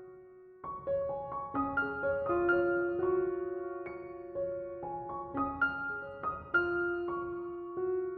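Soft background piano music: a slow melody of single notes that start sharply and fade, resuming after a brief pause less than a second in.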